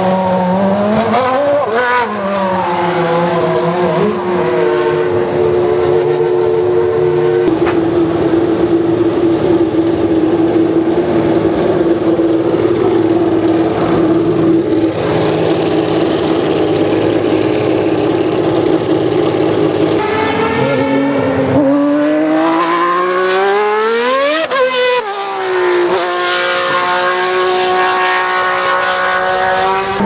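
Formula 1 racing engines at high revs. A Ferrari F1 engine is blipped several times, then held at a steady high pitch for several seconds. After a cut, a car accelerates hard with its pitch climbing sharply, and then another high steady engine note runs near the end.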